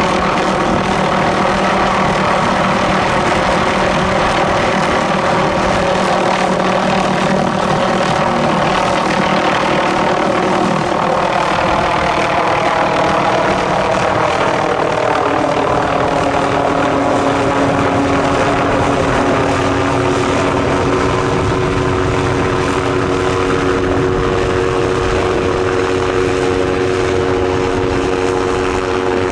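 MD530F light helicopter running in flight, its turboshaft engine and rotors making a steady drone. About halfway through, its pitch shifts lower, then holds level.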